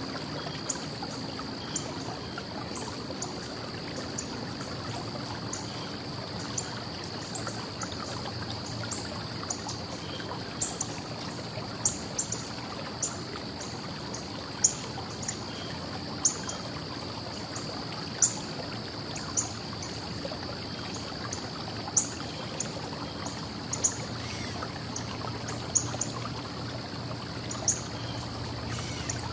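Early-morning outdoor ambience: a steady wash of distant traffic with a low hum under it. Over it, small birds give short high chirps several times a second, with a louder chirp every couple of seconds.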